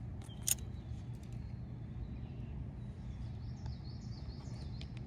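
Outdoor ambience: a steady low rumble, one sharp click about half a second in, and faint bird chirps past the halfway point.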